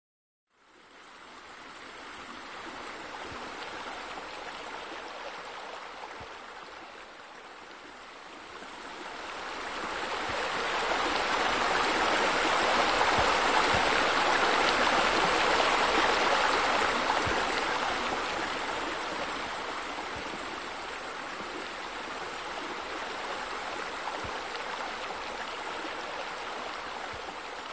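Steady rush of running water that starts just after the opening, grows louder about ten seconds in and eases off again after about eighteen seconds.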